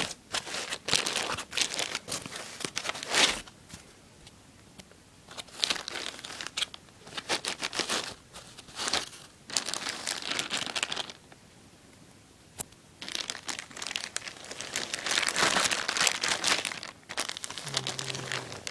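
Thin plastic bag around a new laptop crinkling in irregular bursts as it is handled and pulled open, with two short quiet spells in between.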